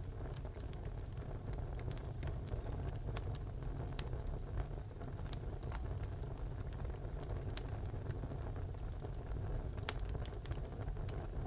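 Wood fire burning in a tile stove: a steady low rumble of the fire with scattered sharp crackles and pops from the burning wood, a few of them louder, about four seconds in and near the end.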